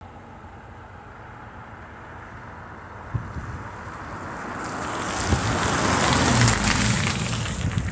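A van drives past on the road, its tyre and engine noise swelling to a peak about six and a half seconds in, over light wind on the microphone.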